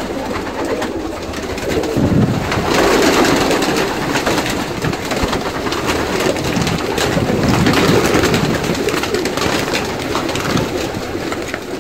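A loft full of domestic pigeons cooing continuously, many birds at once.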